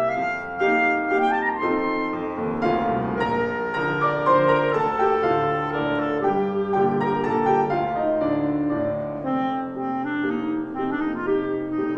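Clarinet and grand piano playing a classical duet. The clarinet carries a quick melody, with short notes climbing in rising runs, over the piano accompaniment.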